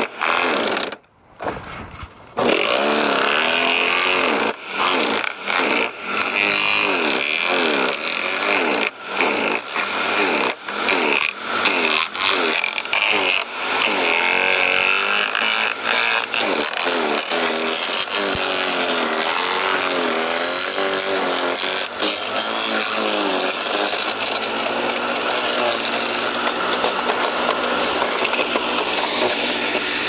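Garden shredder chewing branches pushed into its hopper. The motor's pitch sags and recovers again and again as the wood loads it, and the sound drops out briefly about a second in.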